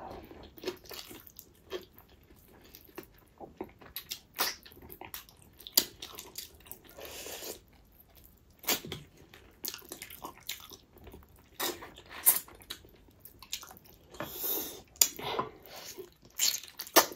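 Close-up eating sounds: wet chewing, smacking and biting on pickled pork feet eaten by hand, in many short, irregular clicks and crunches.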